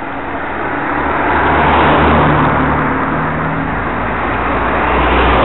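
Road traffic close by: car engines running low and steady under tyre and road noise. The noise swells about two seconds in and again near the end as vehicles pass.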